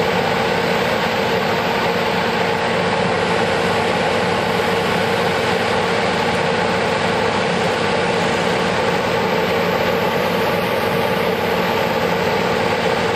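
Diesel engine of heavy pipeline construction equipment running steadily at a constant speed.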